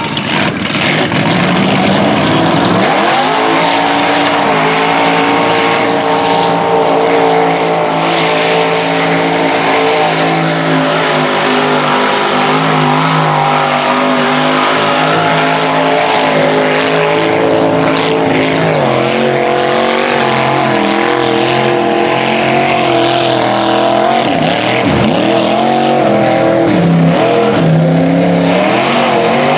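Mud truck's engine revving hard as it churns through a deep mud pit, climbing to high revs about three seconds in and held there. Later the pitch wavers up and down as the tires spin and grip, with a brief sharp drop near the end.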